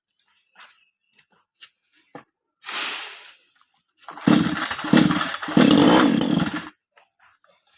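Chainsaw revving hard for about two and a half seconds from a little past halfway through, dipping briefly twice. Before it come a short hissing burst and a few small knocks.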